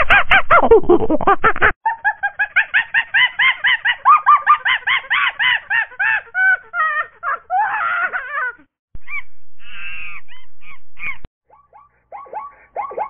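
Animal calls in rapid runs of honk-like calls, about five a second, each call rising then falling in pitch. The runs cut off and restart several times, with a brief break about two seconds in and short pauses near the end.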